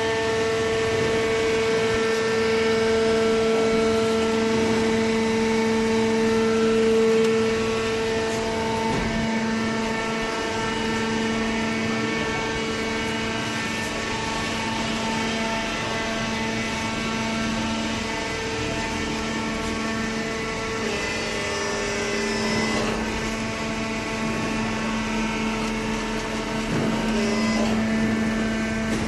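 Paper baler machine running, a steady machine hum with several fixed tones whose balance shifts a few times.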